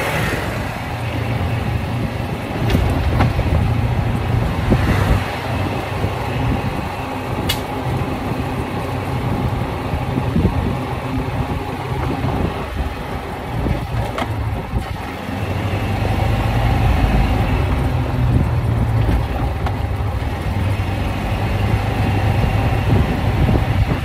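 Golf cart driving over a bumpy road: a low rumble that swells and eases, with wind buffeting the microphone and a couple of sharp knocks as it jolts.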